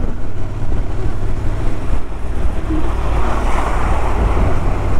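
Wind rushing over the microphone of a Honda NC750X motorcycle riding at road speed, over a low steady rumble. The rush swells for a second or so about three seconds in.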